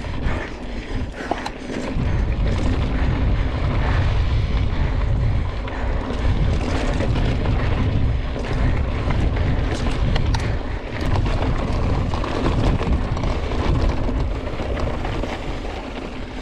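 Wind buffeting the microphone of a camera on a mountain bike ridden at speed on a dirt trail, a heavy gusting rumble that strengthens about two seconds in. Tyre noise and rattling clicks from the bike run underneath.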